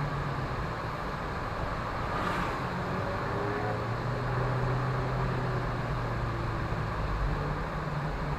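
Car engines running at low speed as cars pull away, a steady low hum over traffic noise.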